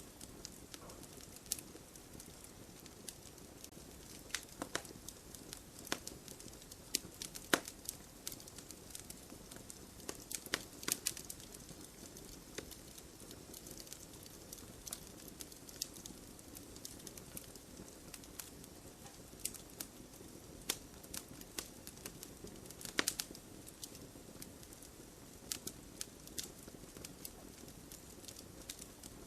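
Wood fire burning in a campfire: a soft steady rush of flame with irregular sharp crackles and pops from the burning wood, a quick run of them about ten seconds in and a louder pop a few seconds after the middle.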